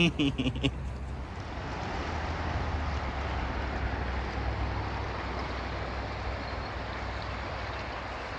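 Fast mountain river rushing over rocks: a steady, even rush of water with a low rumble beneath, rising in about a second in after a short bit of a man's voice.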